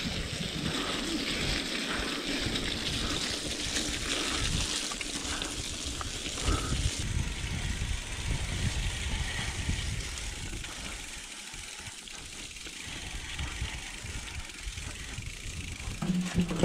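Wind buffeting the microphone over a steady rushing noise of a mountain bike rolling along a track.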